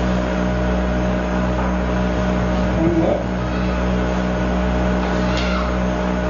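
Steady low electrical-sounding hum with hiss on the soundtrack, unchanging throughout, with a short faint sound about three seconds in and a brief click near the end.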